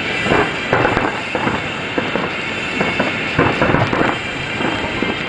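Aerial fireworks shells bursting in a dense barrage: rapid, irregular bangs and crackling, with louder clusters about half a second in, around one second, and between three and four seconds.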